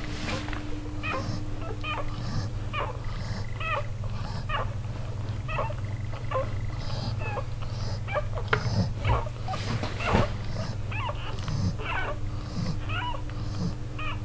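Litter of newborn puppies squeaking and whimpering while nursing: many short, high-pitched cries, often overlapping, over a steady low hum. A few louder bumps come around the middle.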